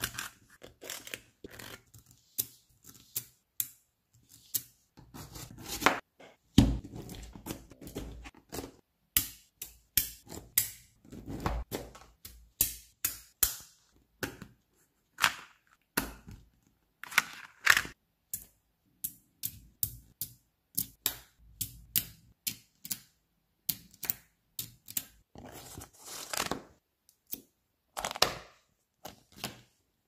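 Small magnetic balls clicking as they are snapped together and pulled apart by hand: many sharp, irregular clicks, with a couple of longer stretches of rattling and scraping.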